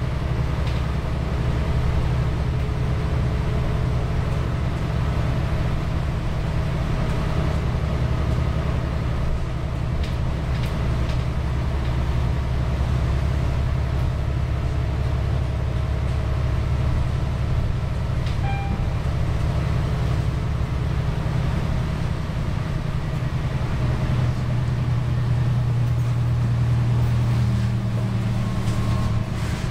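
Cummins ISL9 diesel of a New Flyer Xcelsior XD40 city bus heard from inside the passenger cabin while under way: a steady low engine drone mixed with road noise and light rattles, the drone swelling louder near the end.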